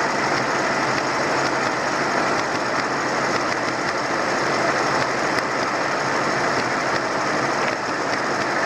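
Ferguson TEA20 tractors coupled in tandem, their engines running steadily under ploughing load, with a busy mechanical clatter.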